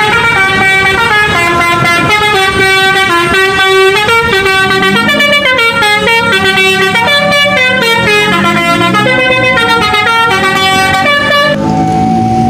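A tune played in horn tones, quick notes stepping up and down with several sounding together, in the manner of an Indonesian 'telolet' musical horn. About a second before the end it gives way to steady held horn tones.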